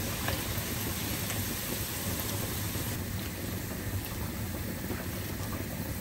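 Hot oil sizzling and crackling steadily in a wok as tater tots deep-fry, with a few light clicks as metal tongs lift them onto a wire draining rack.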